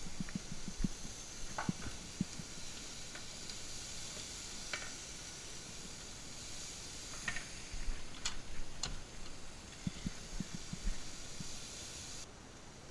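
Vegetables sizzling in a frying pan while being stir-fried with a wooden spatula, with scattered scrapes and clacks of the spatula against the pan. The hiss drops off near the end.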